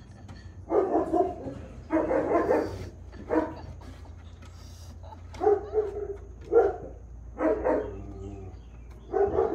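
A dog barking repeatedly, in about seven separate bursts with short irregular pauses between them.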